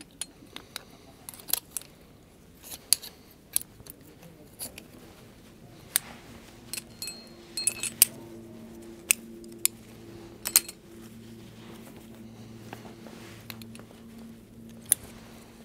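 Metal carabiners and climbing hardware clinking against each other as a climber's hands work prusik cord and rope at his harness: over a dozen sharp, irregular clinks and clicks.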